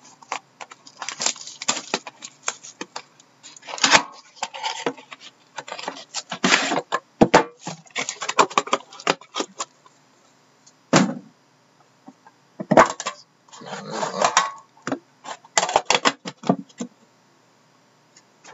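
Metal trading-card tins being handled and stacked, clinking and knocking against each other, with rustling of packaging between the clinks. There are scattered sharp knocks, the clearest about eleven and thirteen seconds in.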